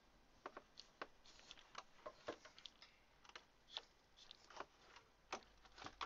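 Faint, irregular clicks and light knocks of a camera being handled and repositioned.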